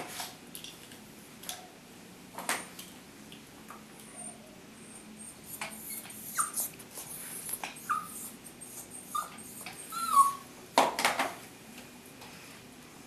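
Papillon puppy whimpering in several short, high, falling squeaks while it is held and handled, with a few sharp knocks and rubbing sounds from the handling. The loudest knocks come about two seconds before the end.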